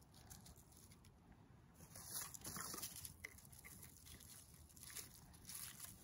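Faint rustling and a few light knocks of sticks being laid by hand onto a small fire lay over a just-lit starter flame.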